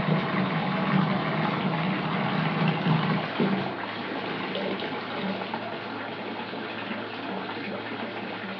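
Water running from a tap into a bathtub, a steady rushing splash. A low hum under it stops about three and a half seconds in, and the water then runs on a little quieter.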